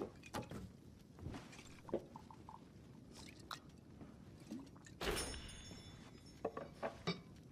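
Whiskey glass handling and drinking: scattered light clicks and knocks of the glass, with a brief louder rush about five seconds in and a few sharp ticks near the end.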